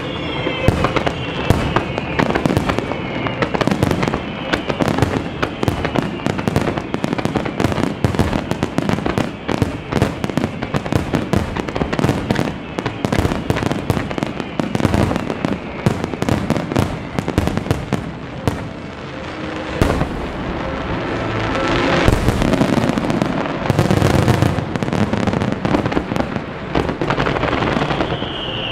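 Fireworks display finale: a dense, rapid barrage of launches and shell bursts with crackling, swelling louder about twenty seconds in. High whistles falling in pitch sound in the first few seconds and again near the end.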